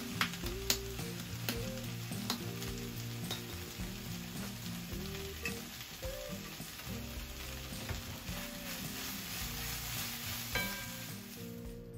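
Stir-fry of vegetables and meat sizzling in a frying pan over a gas flame, stirred with a wooden spatula. A few sharp taps of the spatula on the pan come in the first couple of seconds.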